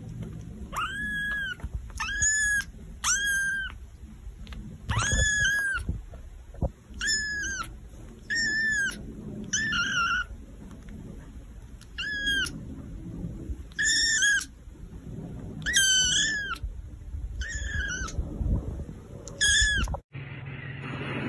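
Young tabby kitten meowing over and over, about a dozen high-pitched meows of roughly half a second each, each rising and falling in pitch.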